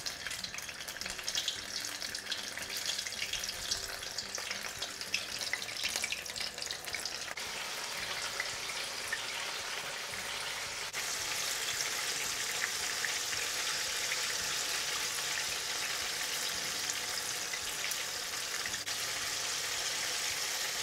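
Battered paneer sandwich pakoras deep-frying in hot sunflower oil in an iron kadhai: a steady sizzle full of fine crackles, which turns louder and fuller about eleven seconds in.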